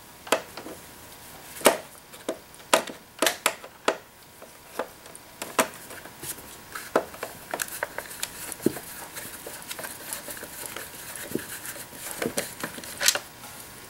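Irregular sharp clicks and ticks of a Torx screwdriver working a screw out of the brew group mounting inside a Jura espresso machine, metal tool on screw and plastic housing. The clicks come thickest in the first half and thin out later.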